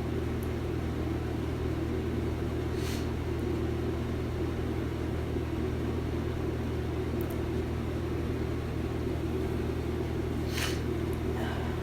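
Short nasal sniffles from a cold-congested nose: one about three seconds in and two close together near the end. A steady low hum runs underneath and is the loudest sound throughout.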